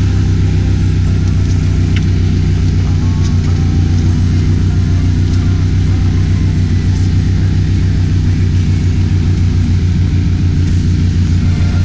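Mud motor running steadily at speed, pushing the boat along with a deep, even engine drone.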